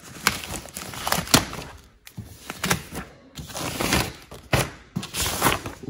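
Packing wrap rustling and crinkling in irregular bursts, with a few sharper crackles, as a white packing sheet and clear plastic are pulled off a projector.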